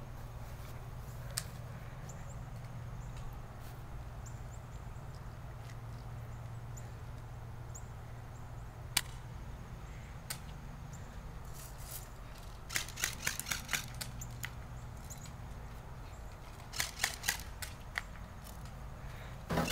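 Airsoft guns firing sharp pops. Single shots come first, then a rapid string of about six around the middle and a shorter burst a few seconds later, over a steady low hum.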